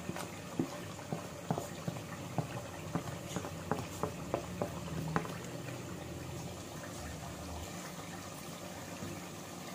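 A pot of thick chicken korma gravy bubbling as it cooks. Through the first half there are frequent light clicks of a spoon scraping spice powder across a plate.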